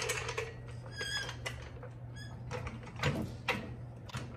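Hydraulic floor jack being pumped up under a riding mower's front axle: a series of separate metallic clicks and knocks, with two short high squeaks about one and two seconds in, over a steady low hum.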